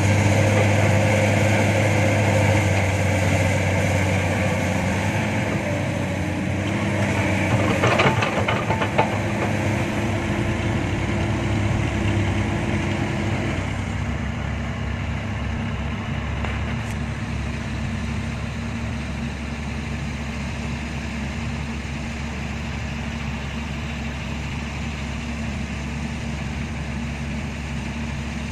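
Heavy diesel engine running steadily, with a short burst of clanking knocks about eight seconds in; the engine note drops and changes about halfway through.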